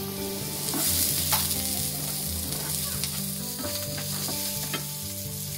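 Chopped onion, green chilli and cumin sizzling in hot oil in a nonstick frying pan, with a plastic slotted spatula stirring and scraping against the pan several times. The onions are being fried down toward golden brown.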